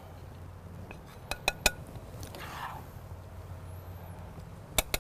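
Serving utensils clinking against dishes during plating: three sharp clinks in quick succession about a second and a half in, and two more near the end, over a low steady hum.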